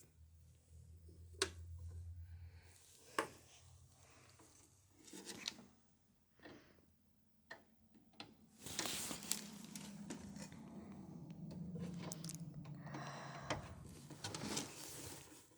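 Hands working on a small-form-factor desktop computer during a power supply swap: scattered clicks and taps, then a longer stretch of scraping and rustling in the second half.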